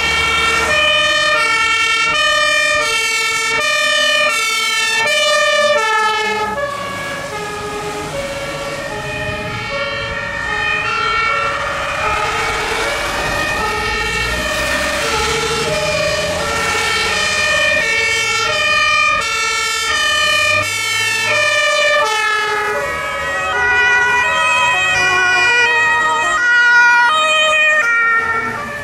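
Several German two-tone emergency sirens from a passing convoy of fire engines and ambulances, each alternating between two notes and sounding out of step with the others, over the running of truck engines. The sirens grow loudest near the end as a vehicle passes close.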